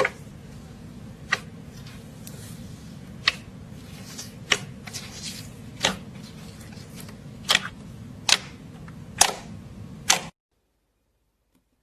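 Slime being pressed and worked, giving sharp, separate pops about once a second over a steady low hum. The sound cuts off to silence near the end.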